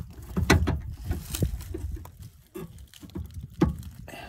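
Scattered clicks and knocks of pliers gripping and turning a brass flare nut on a copper LP gas line, tightening a fitting that leaked, over a low rumble.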